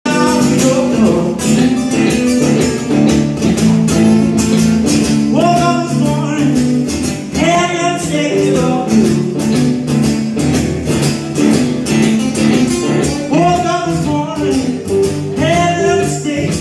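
Electric and acoustic guitars playing an instrumental blues intro together: a steady guitar rhythm underneath, with slide guitar swooping up into notes every couple of seconds.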